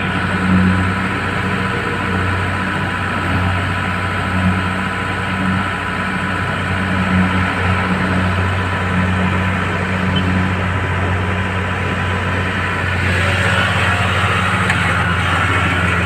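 Kubota DC-70 Plus crawler combine harvester's diesel engine running steadily, a deep even hum with a steady higher mechanical whine over it. A hissier noise joins about thirteen seconds in.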